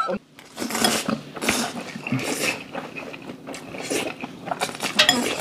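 Spicy cold noodles (bibim-guksu) being slurped and chewed, a run of short irregular sucking noises.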